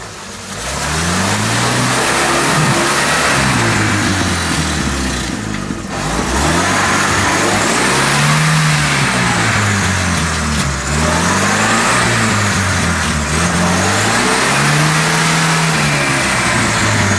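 UAZ-469 off-roader's engine revving hard, its pitch rising and falling again and again, as the bogged vehicle spins its wheels in a deep mud puddle, churning mud and water.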